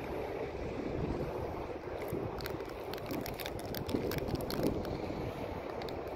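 Distant go-kart engine running as the kart laps the far side of the circuit, mixed with wind noise on the microphone and a few light ticks partway through.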